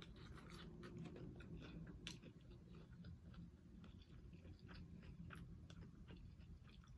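Faint chewing: soft, irregular mouth clicks and smacks of someone eating.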